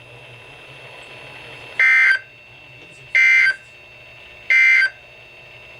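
Three short buzzing data bursts of the Emergency Alert System's digital SAME code on a NOAA Weather Radio broadcast, each about half a second long and evenly spaced about 1.3 s apart. This triple burst is the end-of-message signal that closes the severe thunderstorm warning.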